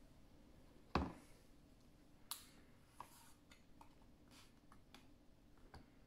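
Handling of a thick cardboard children's sound book: a soft thump about a second in as a board page is laid flat, then a few light clicks and rustles of hands pressing and smoothing the pages.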